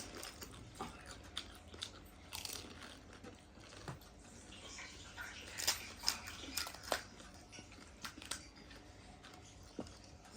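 Close-up crunching and chewing as crisp golgappe (pani puri shells) are bitten and eaten, with scattered small crackles and a few louder crunches in the middle and near the end.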